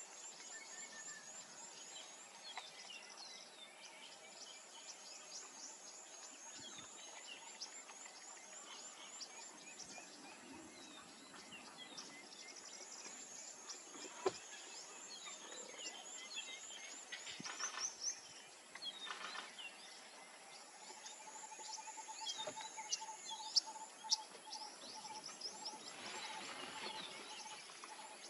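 Chorus of wild birds calling: many short high chirps and repeated trills, joined about two-thirds of the way in by a rapid, even run of mid-pitched notes. A few sharp clicks stand out.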